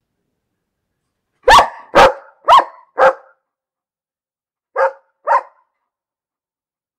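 A dog barking: four loud, short barks about half a second apart, then, after a pause, two quieter barks.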